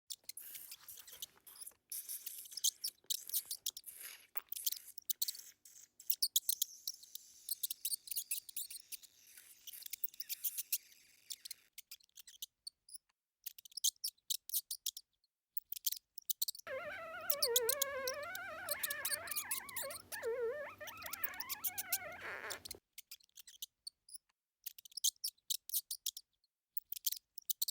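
Mice squeaking: many short, very high-pitched squeaks and chirps in quick irregular runs. About two-thirds of the way through comes a lower, wavering squeal lasting about six seconds, which then stops suddenly.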